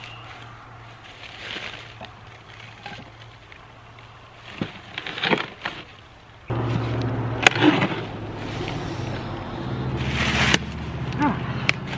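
A large concrete corner block scraping and knocking as it is pried along with a metal bar onto a wooden sled. About six and a half seconds in, a steady low hum starts suddenly, with a few sharp clicks over it.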